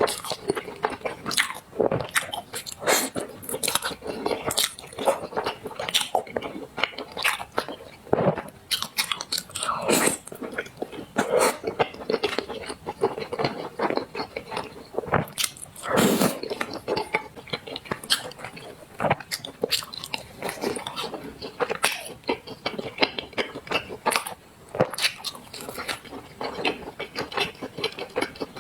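Close-miked eating sounds of someone eating black sesame paste: chewing and mouth clicks, many sharp, irregular clicks in quick succession.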